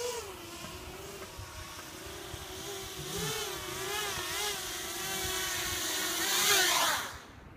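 250-size FPV racing quadcopter's motors and propellers whining, the pitch wavering up and down with the throttle as it is brought down to land. Near the end the whine climbs and then cuts off suddenly.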